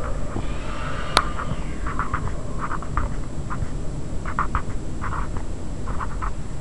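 A pen scratching on paper in short, separate strokes as digits are written out, over a steady low rumble, with one sharp click about a second in.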